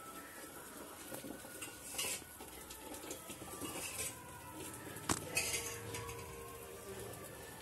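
A spoon scraping and clinking against a metal pot as cooked mint rice is stirred and fluffed, with a few sharp knocks, the sharpest about five seconds in.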